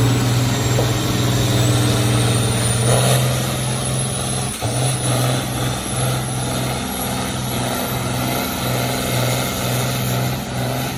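International farm tractor's engine pulling hard under steady heavy load as it drags a weight-transfer sled down the pulling track, holding one steady engine note.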